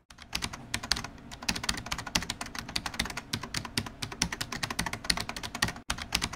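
Typing on a keyboard: fast, irregular key clicks, several a second, with a brief break near the end.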